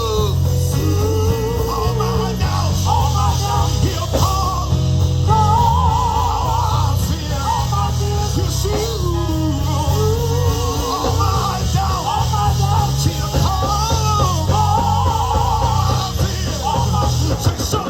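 Live gospel band music: organ playing wavering melodic runs over steady drums and bass guitar.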